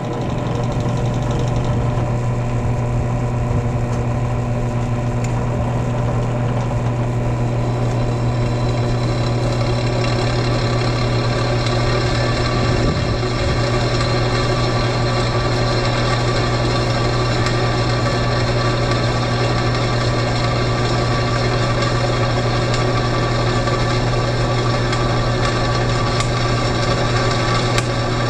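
Benchtop drill press running with a steady hum, its bit drilling into a flat metal bar.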